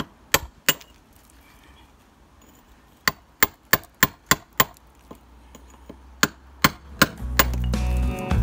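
Club hammer and cold chisel knocking pieces off a concrete breeze-block wall to widen an opening: about a dozen sharp blows, three, then a quick run of six, then three more. Guitar music comes in near the end.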